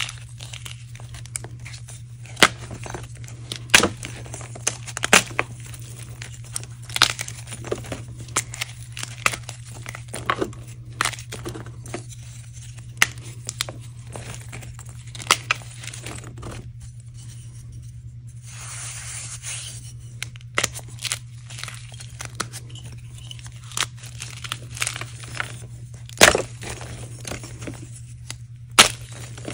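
Hands crushing dry gym-chalk reforms, left to dry for months until very crunchy. Frequent sharp cracks and snaps come as the blocks break, with a short stretch of gritty crumbling about two-thirds of the way through.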